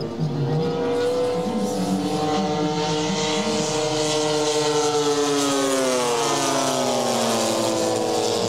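Engines and propellers of radio-controlled scale warbirds flying a display pass. The engine note runs steadily, then falls in pitch between about five and a half and seven and a half seconds in as the planes go by.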